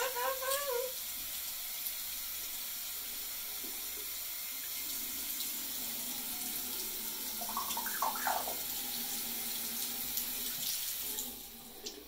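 Tap water running in a steady hiss that stops about eleven seconds in, with a yellow-crowned Amazon parrot giving short pitched calls at the start and again around eight seconds in.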